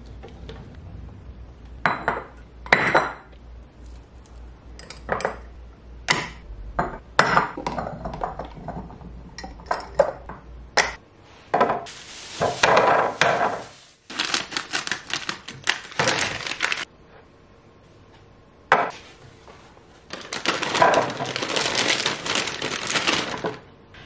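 Cherries dropping off a slotted plastic spoon into a clear plastic fridge bin, a scatter of sharp clicks and clinks. From about halfway, a thin plastic produce bag crinkles and rustles as produce is unwrapped, twice with a short pause between.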